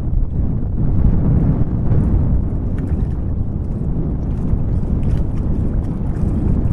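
Wind buffeting an outdoor webcam microphone: a steady, low rumble.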